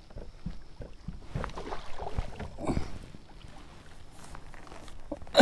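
Scattered light knocks and faint water noise on and around a kayak as a hooked bass is reeled in and a landing net is brought over it.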